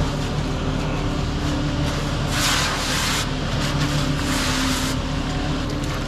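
Concrete mixer truck running steadily while a water hose sprays the chute in bursts to wash it down after the pour. The spray hiss comes loudest about two seconds in, and again from nearly four to five seconds in.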